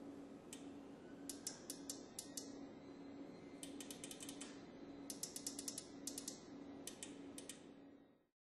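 Push buttons on a Forever MS 50 mug heat press clicking as the time is set, one click about half a second in, then quick runs of several clicks with short pauses between, over a faint low hum.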